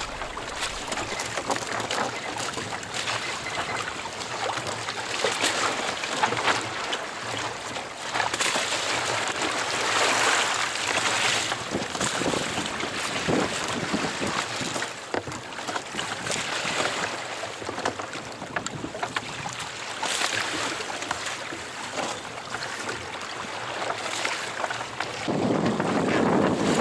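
Wind buffeting the microphone in gusts over choppy sea water splashing against an inflatable boat's hull, swelling and easing every few seconds and growing louder near the end.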